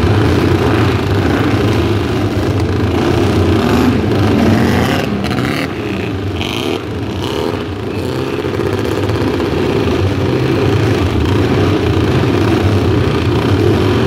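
Several historic racing motorcycle engines running and revving together as the bikes pull away from the grid. The sound dips briefly about six seconds in.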